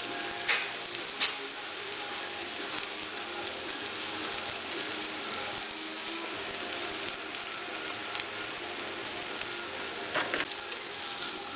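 Burger patties sizzling steadily in plenty of cooking oil in a frying pan. Two sharp knocks come about half a second and a second in, and a short clatter near the end, as the plastic spatula meets the pan.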